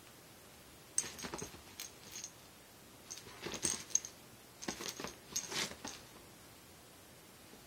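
Light metallic jingling in three short bursts as a Chihuahua shakes and tosses a fluffy toy.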